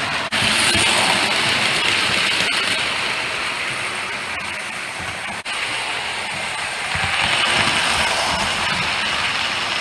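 Prewar Lionel 249E O-gauge toy steam locomotive running with a string of tinplate freight cars: the whirr of its electric motor and gears and the clatter of wheels on tinplate track. It gets louder as the train comes close, about seven seconds in.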